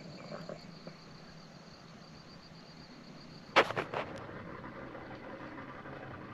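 Outdoor ambience with a steady high-pitched whine, broken about three and a half seconds in by a sharp loud knock and a smaller one just after. The whine then stops, leaving a faint steady hiss.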